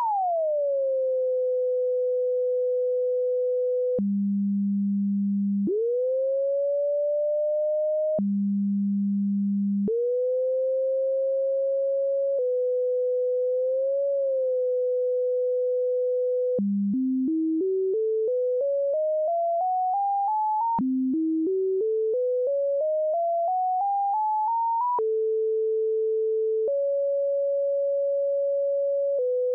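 A computer-generated pure sine tone whose pitch follows the shape of math function graphs. It glides down and settles into a steady tone, twice drops suddenly to a low tone and curves back up, wavers in a small bump, then climbs in two staircases of about four short steps a second. It ends on a few steady tones at different pitches, switching abruptly.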